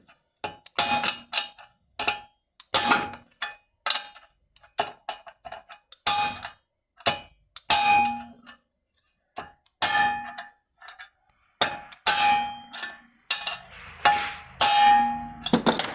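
Repeated ringing metal-on-metal strikes, roughly two a second with a short pause midway, as the old bearing is banged down onto a new bearing to drive it onto the washing-machine transmission shaft until it seats.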